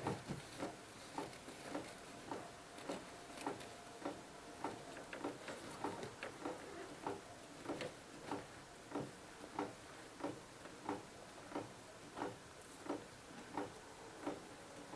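Faint, very regular clicking, a little under two clicks a second at an even pace.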